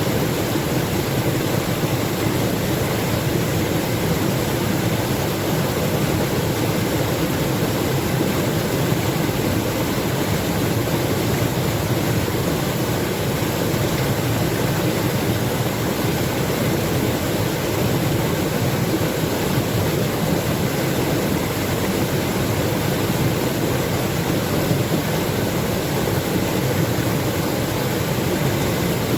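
Running water rushing steadily, an even, unbroken roar with no separate splashes standing out.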